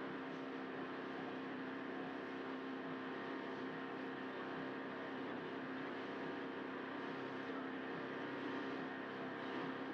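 Outboard motor of a ski boat running steadily at speed under load, towing a water-skier, over the rush of the wake.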